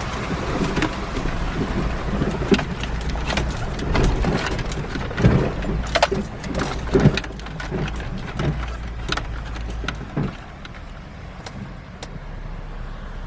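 Off-road vehicle driving over rough ground: a steady low engine and road rumble with frequent knocks and rattles, a few heavier thumps midway. It eases off and goes quieter after about ten seconds.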